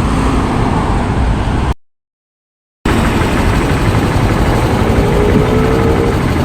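Motor vehicle engine running with a steady rumble. The sound cuts out completely for about a second just under two seconds in, then returns, with an engine note rising slightly in the second half.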